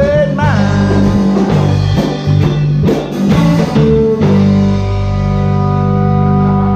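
Guitar playing the end of a blues song, with a last sung note trailing off at the start, then a final chord left ringing from about four seconds in.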